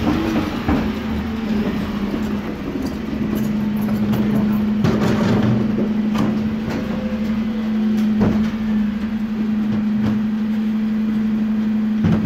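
A motor running steadily with a low, even hum, with scattered knocks and clatters over it.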